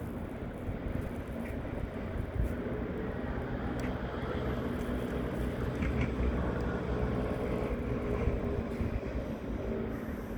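Low engine rumble of a vehicle with a few faint steady tones, slowly growing louder to a peak past the middle and easing off near the end.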